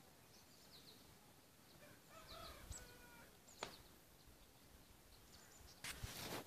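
Faint distant rooster crowing about two seconds in, against a quiet rural background. A single sharp click comes near the middle, and a short rush of noise near the end is the loudest sound.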